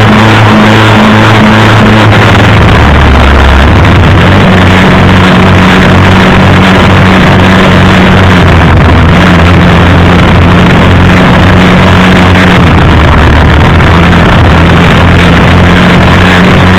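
Rain and wind noise on a motorcycle-mounted camera riding through a heavy downpour, loud and distorted, over a steady low hum that shifts to a new pitch every few seconds.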